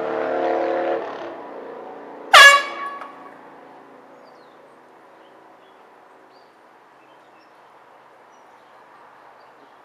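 A steady horn-like tone for about the first second, then a short, very loud horn-like blast falling in pitch about two and a half seconds in. After it comes faint steady hiss.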